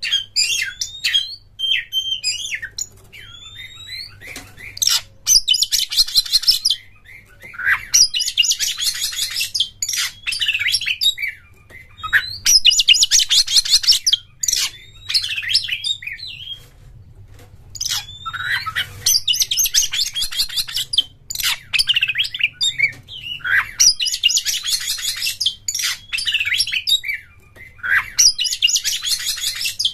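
Oriental magpie-robin (kacer) singing a varied song of whistles and chirps, broken every few seconds by long rapid trills.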